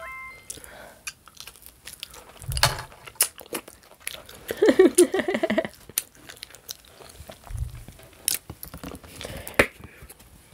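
Close-miked mouth sounds of eating a baked chicken wing: bites and wet chewing with scattered sharp clicks and smacks.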